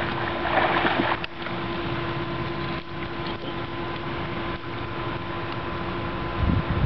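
Outdoor swimming-pool ambience: a steady wash of water noise with a faint steady hum, a brief splash of water in the first second, and wind buffeting the microphone near the end.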